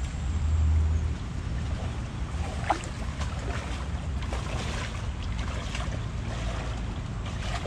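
Muddy river water sloshing and splashing around wading legs, with wind buffeting the microphone at the start and a brief sharp sound about two and a half seconds in.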